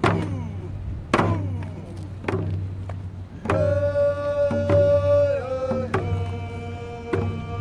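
A drum beaten at a steady slow beat, about one stroke a second, each stroke ringing and falling in pitch. A voice singing long held notes comes in strongly about three and a half seconds in and steps down in pitch about two seconds later.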